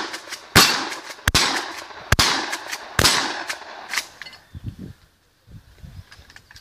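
Shotgun fired five times at about one shot a second, each shot with a short echo trail, the last one fainter. After that come only faint handling sounds as the gun is lowered.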